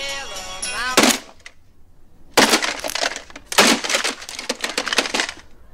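A song playing from a clock radio is cut off by a sharp hit about a second in. Then come two long stretches of loud crashing and breaking as the clock radio is smashed.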